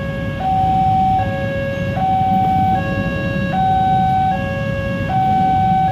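Railroad level-crossing electronic warning alarm sounding a two-tone hi-lo pattern, each tone held just under a second, warning that a train is approaching. Idling motorcycle and car traffic hums underneath.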